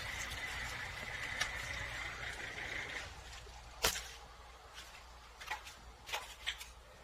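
Washing machine running off a portable power station with a steady high whine over a hum, which stops about three seconds in. A sharp click follows, then a few lighter clicks.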